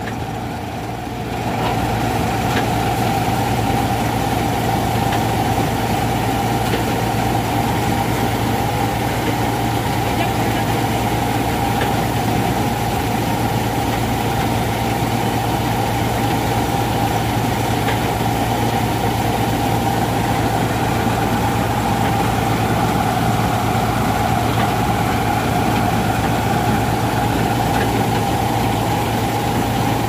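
Kartar 4000 combine harvester running steadily while its unloading auger empties paddy from the grain tank into a tractor trolley. The sound steps up about a second and a half in, as the unloading starts, then holds steady.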